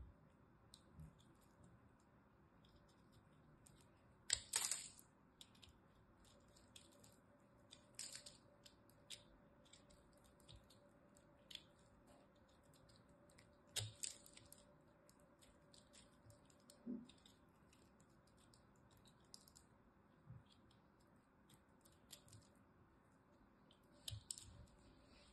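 Utility knife blade cutting and scraping into a crumbly ball of soap: quiet, scattered crisp crackles and clicks, with a handful of louder crunches about four, eight, fourteen and twenty-four seconds in.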